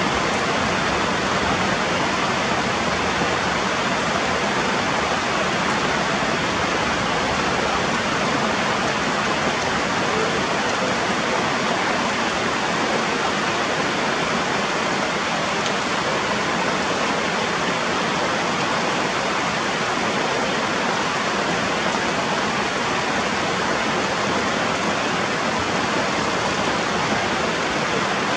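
Heavy rain falling steadily, an even, unbroken hiss of water.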